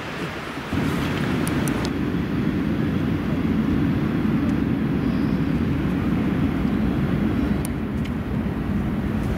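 Steady low rumble of outdoor noise that sets in about a second in and holds without a break.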